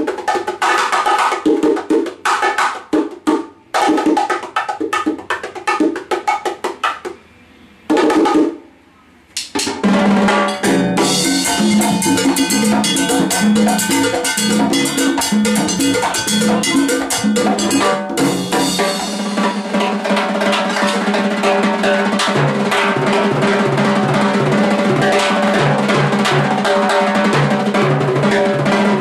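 Hand percussion jam in a dominicano/merengue style. At first the bongo plays short phrases broken by brief pauses. From about ten seconds in a full groove of timbales, cymbal and cowbell joins and plays on without a break.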